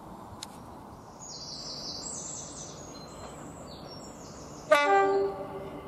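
Birds singing, then near the end a diesel locomotive's horn sounds one short, sudden blast that fades away. The locomotive is a green BR Class 40 hauling a heritage passenger train.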